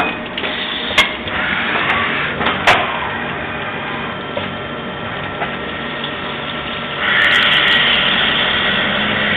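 Mori Seiki MV Junior CNC vertical machining centre running while it machines valve bodies under coolant spray: a steady machine noise with a couple of sharp clicks early on. About seven seconds in, a louder hiss with a steady high tone sets in as the tool cuts and coolant sprays over the parts.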